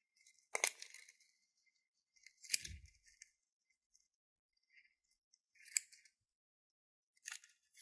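Small scissors snipping into a pink rubber balloon: four separate sharp snips with quiet between them.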